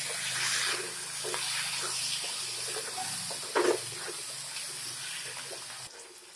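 Spatula stirring and scraping thick singhara (water chestnut) masala in a steel kadai, the sabzi sizzling in the pan, with one louder scrape about three and a half seconds in. The stirring stops near the end.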